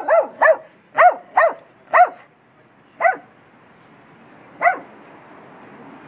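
A dog barking: eight short barks, five in quick succession in the first two seconds, then two more spaced a second or more apart.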